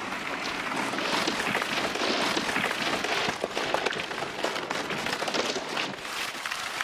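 Dense crackling and rustling noise made of many tiny clicks, even and unbroken, without any tune or voice.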